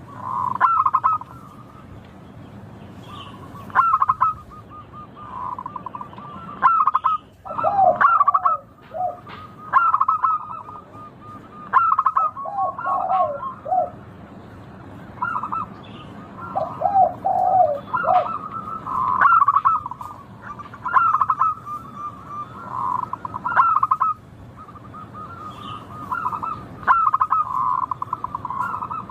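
Zebra dove (local perkutut) cooing: short phrases of quick rippling notes, repeated every couple of seconds. A lower run of notes comes in a few times.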